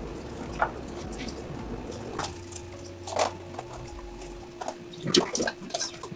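Paintbrushes working on plastic water bottles, with a few light clicks, then near the end a brush swished and clinked in a glass cup of rinse water. A steady low hum runs underneath.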